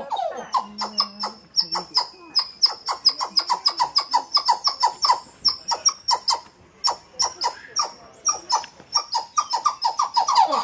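Emperor tamarins calling: a rapid, unbroken run of short, sharp, high-pitched chirps, about four to five a second.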